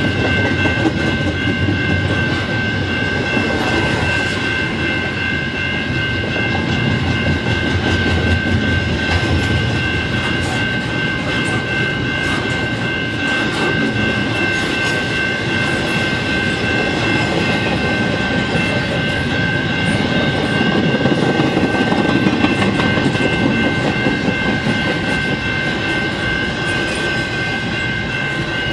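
Freight train of double-stack container well cars rolling steadily past, with a continuous rumble of wheels on rail. The crossing's General Signals Type 2 electronic bell keeps ringing over it at a steady high pitch.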